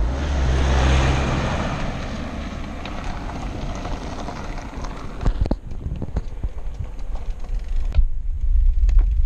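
Wind rushing over the microphone of a camera mounted on a moving road bike, with low tyre and road rumble. About five and a half seconds in the rush drops away, leaving the rumble and scattered short knocks.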